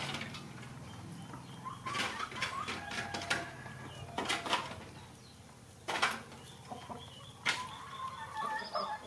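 Hens clucking faintly with short, soft calls, with several sharp clicks and taps. Two of the clicks in the second half are louder than the rest.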